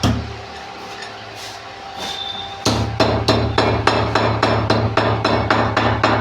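Pestle pounding whole spices and ginger in a mortar: a short lull, then from about two and a half seconds in, steady strikes at roughly three a second.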